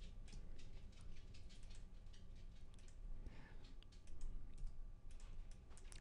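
Faint computer mouse and keyboard clicks, many short irregular clicks, over a low steady hum.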